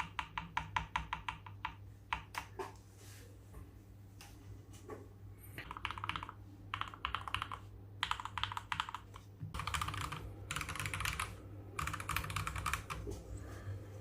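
Fully modded Akko 3098B mechanical keyboard being typed on in quick bursts of key clicks, with short pauses between the runs.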